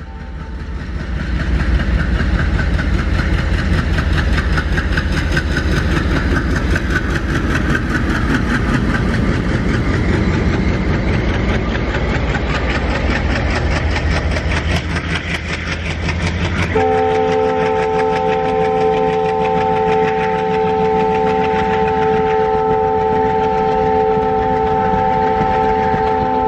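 Indian Railways diesel-hauled express train running through without stopping. The engine rumble builds as the locomotive goes by, with the rapid clatter of coach wheels over rail joints. About two-thirds of the way in, a long, steady multi-tone train horn starts and is held to the end.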